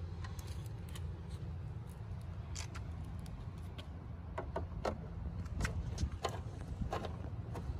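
Irregular sharp clicks and clinks of small metal mounting hardware being handled while a duck spoiler is bolted onto a car's rear deck lid, over a steady low rumble. The clicks come more often after the first couple of seconds.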